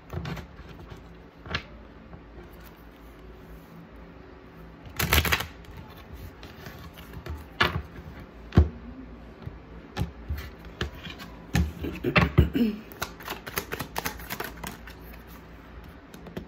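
A deck of oracle cards being shuffled and handled: scattered sharp card clicks and slaps, with a brief riffle about five seconds in and a quick run of clicks around twelve seconds.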